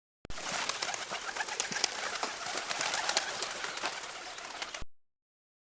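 Birds: a dense, hissy stretch of many short, sharp calls or clicks that cuts in abruptly and stops abruptly after about four and a half seconds.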